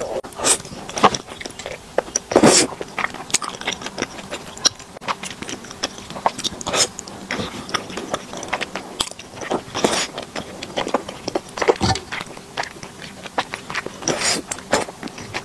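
Close-miked mouth sounds of someone eating thick, chewy fenhaozi rice noodles in spicy sauce: wet chewing and smacking throughout, with a few louder slurps, at about two and a half seconds, ten seconds and near the end.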